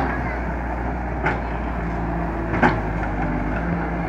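Hyundai wheeled excavator's diesel engine running steadily while the machine climbs a dirt mound, with three sharp knocks about a second and a half apart.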